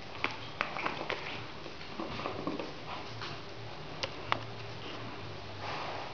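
Dobermann puppies scuffling together on a blanket over a tile floor: scattered light taps and clicks from paws and claws, with soft snuffling, and two sharper ticks about four seconds in.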